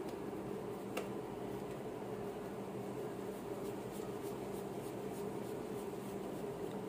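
Soft, sticky handling of bread dough as hands round a ball of dough, with faint light ticks and a click about a second in, over a steady background hum.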